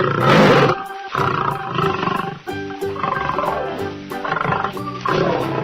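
A lion roaring over light background music, loudest in a burst right at the start.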